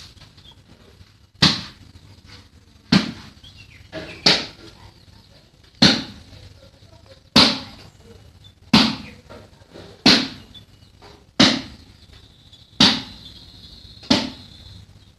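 About ten sharp knocks, evenly spaced roughly a second and a half apart, each dying away quickly.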